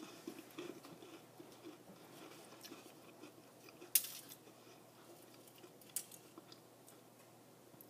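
A person chewing a soft bite of s'more (cookie, peanut butter and marshmallow) with the mouth closed, faint and wet. Two short sharp clicks stand out, one about four seconds in and a smaller one about two seconds later.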